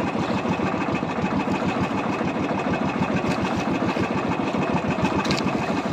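Small outrigger fishing boat's engine running steadily with a fast, even pulsing beat.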